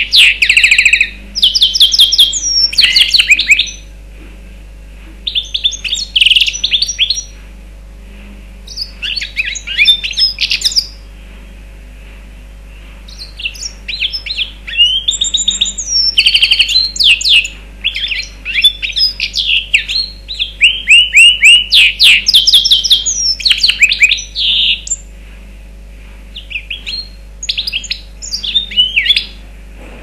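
Mozambique serin × canary hybrid (a mule) singing: fast, high twittering trills and warbles in bursts of a few seconds, separated by short pauses, with one long unbroken run of song in the middle.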